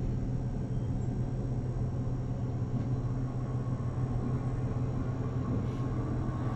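A steady low rumbling drone from a horror film's soundtrack, even throughout with no sharp sounds.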